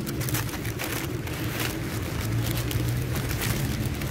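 Steady low hum of vehicle engines from street traffic, with scattered crinkling of a paper sandwich wrapper being unwrapped.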